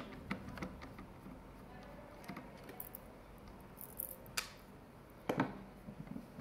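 Faint handling sounds of a screwdriver and a plastic side brush being worked loose from the underside of a robot vacuum, with light scraping and small ticks, then a sharp click about four and a half seconds in and a knock about a second later.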